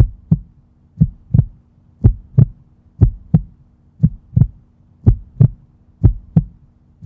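Heartbeat sound effect: deep paired lub-dub thumps, about one beat a second, over a faint steady hum.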